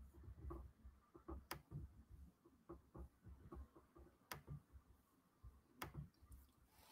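Near silence: room tone with three faint sharp clicks and scattered soft low knocks.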